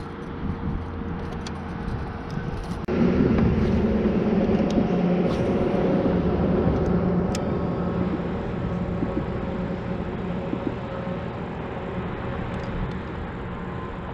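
A steady, even motor hum that starts abruptly about three seconds in.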